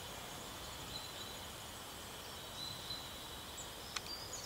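Outdoor woodland ambience: a steady low hiss with faint, thin, high bird calls, a few short chirps near the end and a single sharp click about four seconds in.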